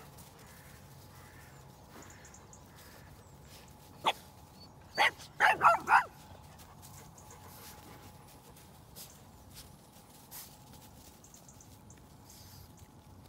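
Dog barking: a quick burst of about five short, sharp barks about four to six seconds in.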